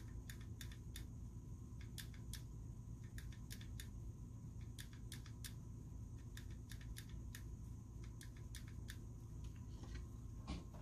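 Faint, irregular small clicks of a VFC Avalon Version 2 airsoft gearbox's trigger and selector parts being worked by hand, a click or two a second.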